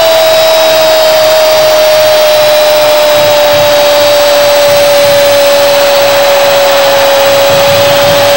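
A Spanish-language football commentator's long drawn-out goal shout, one loud held "gooool" sinking slowly in pitch, over a cheering stadium crowd.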